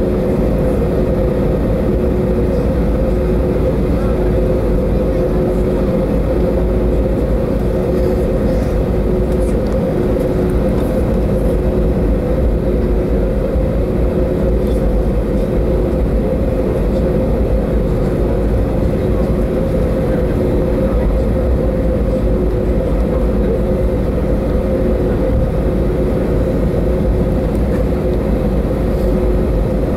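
Cabin noise inside a taxiing Airbus A320neo: a steady low rumble from the engines at taxi power, with a steady hum and a second tone that pulses on and off at even intervals.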